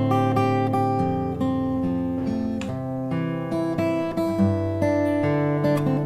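Background music: strummed and plucked acoustic guitar.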